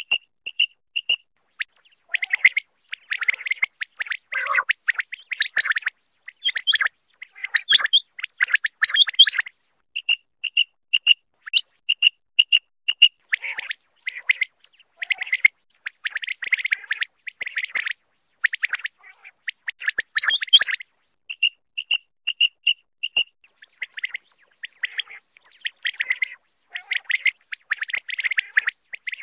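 Common quail calling: runs of short, evenly spaced, clear high notes alternate with denser, harsher bursts of calls.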